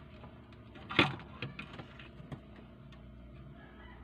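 Handling noise from taking apart a plastic radio-cassette housing with a screwdriver: one sharp clack about a second in, followed by a few lighter clicks.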